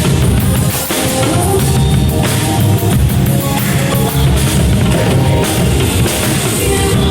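Drum kit played continuously along with rock music, the bass drum prominent in the groove.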